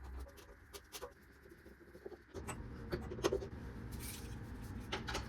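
Light clicks and taps of plastic microwave door parts being handled and fitted during reassembly, with a low steady rumble coming in a little over two seconds in.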